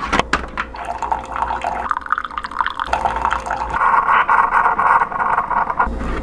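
Keurig single-serve coffee maker: a few clicks as the lid is shut, then coffee streaming from the brewer into a ceramic mug, growing louder about four seconds in and stopping shortly before the end.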